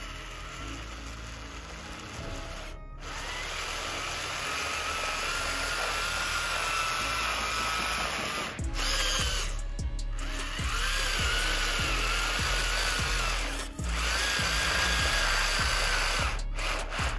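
Electric drive motor and gearbox of a radio-controlled model tractor whining as its wheels spin and dig in loose sand, the pitch rising and falling with motor speed and broken by a few short gaps. Background music runs underneath.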